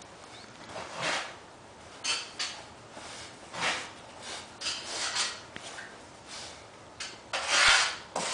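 Crumpled wrapping rustling and crinkling in irregular bursts as a tile is unwrapped by hand, loudest near the end.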